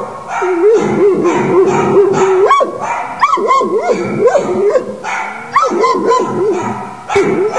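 A large dog whining and yowling. One long drawn-out whine is held for about two seconds, then comes a string of short cries that rise and fall in pitch.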